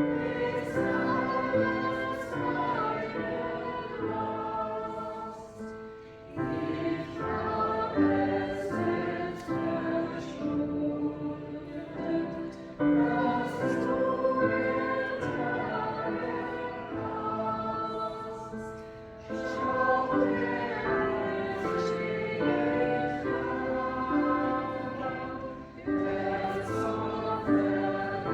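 Church choir singing a slow piece in sustained notes, in four phrases of about six seconds each with a short breath between them.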